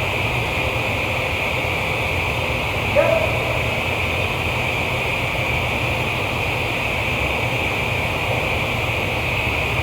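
Steady industrial machinery noise: a continuous hiss with a low hum underneath, with one brief short sound about three seconds in.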